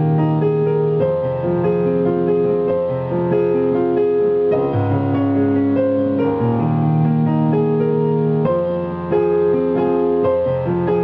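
Instrumental keyboard music in a piano sound: held chords over bass notes, changing every second or two.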